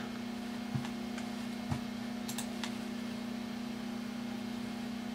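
Steady low hum of room equipment, with four faint computer-mouse clicks in the first three seconds as dialog windows are closed.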